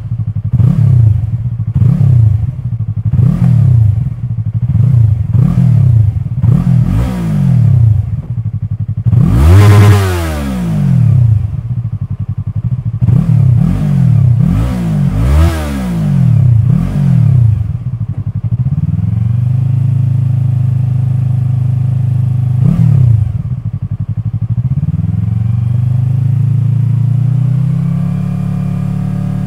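Yamaha YZF-R3's parallel-twin engine breathing through an Akrapovic carbon-fibre slip-on silencer with no baffle fitted, on stock headers, revved in quick throttle blips a little over one a second, with two longer, higher revs in the middle. It then settles to a steady idle, with one more short blip.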